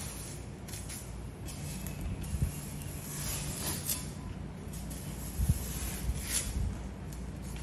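Large knife slicing through the skin and flesh of a giant bluefin tuna: a few scraping strokes, with two dull knocks, over a steady low hum.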